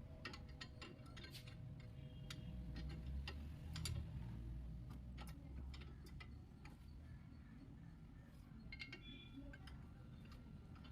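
Faint, irregular metal clicks and ticks of a steel extension rod working against a brake caliper as its piston is slowly pushed back into the cylinder, over a low rumble.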